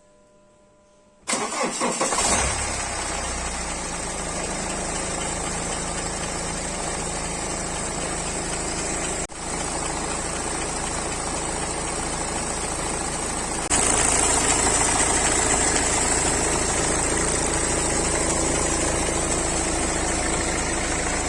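BMW 3 Series engine cranking briefly and catching on a cold start after standing unused for a long time, then idling with the knocking sound the owner noticed after the long lay-up. The idle gets louder about two-thirds of the way through.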